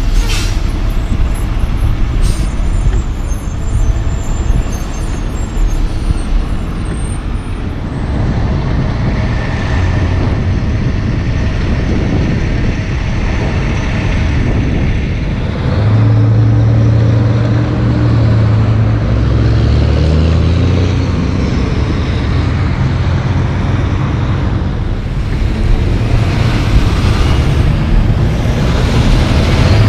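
Heavy diesel logging trucks passing on the road with engine and tyre noise and other traffic. About halfway through, a truck's engine pulls hard, its note climbing in steps through the gears.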